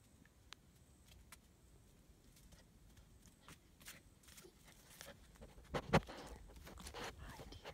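German Shepherd puppies' paws and claws ticking and pattering on a concrete patio, faint scattered clicks. About six seconds in comes a sudden thump and rustling of fur as a puppy bumps into the microphone.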